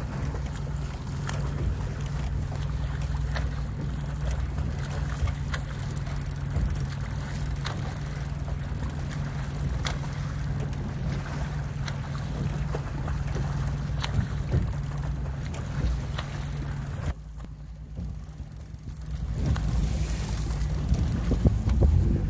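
Escort boat's motor running steadily, a low even hum under water and wind noise. About 17 s in it drops away briefly, then wind on the microphone and choppy water grow louder near the end.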